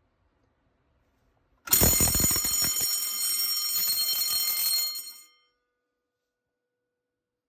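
Sump pump failure alarm bell ringing loudly with rapid strikes for about three and a half seconds, then stopping: it is sounding on loss of power to the sump pump circuit, as when a tripped breaker or an unplugged cord cuts it.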